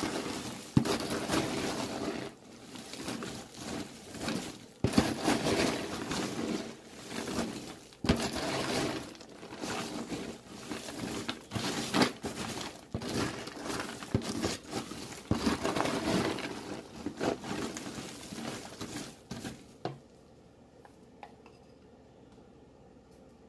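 Crisp candy-coated popcorn being stirred and tossed with a metal spoon in a plastic tub: rustling and crunching in uneven strokes with sharp clicks, stopping about 20 seconds in.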